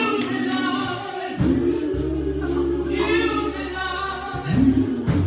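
Gospel choir singing with instrumental accompaniment, over long held bass notes that change every second or two.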